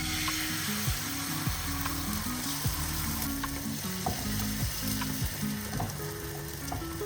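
Egg mixture frying in oil in a pan, a steady sizzle.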